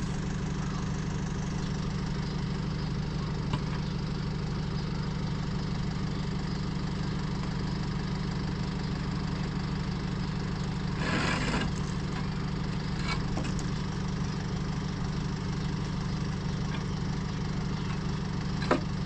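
Truck diesel engine idling steadily, with a few knocks and a scrape from concrete blocks being unloaded: a sharp knock about three and a half seconds in, a longer scrape around eleven seconds, and another knock near the end.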